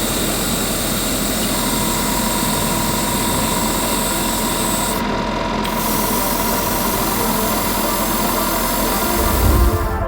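A small motor, such as a hobby tool or compressor, running steadily with a loud hiss. A thin, steady whine joins about a second and a half in, and a low rumble swells briefly near the end.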